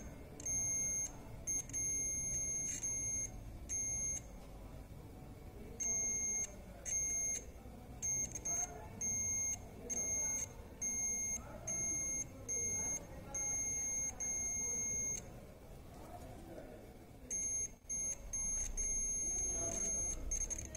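A digital multimeter's continuity buzzer sounds a steady high-pitched tone, switching on and off in irregular beeps from a fraction of a second to over a second long as the probes touch the armature's commutator segments. Each beep signals electrical continuity between the segments. The beeps pause for about two seconds near the end, then resume.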